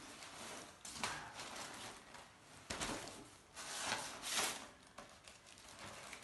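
Paper kites being shuffled and lifted by hand: crinkly rustling of the thin kite paper over their bamboo frames, with louder swishes about a second in, near three seconds and around four seconds.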